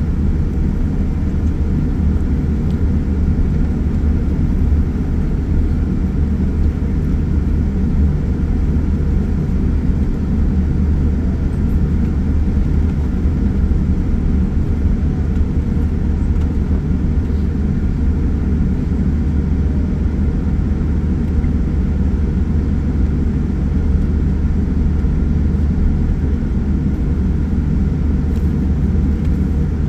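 Steady low rumble inside the cabin of a Boeing 787-9 taxiing, its Rolls-Royce Trent 1000 engines at low taxi thrust.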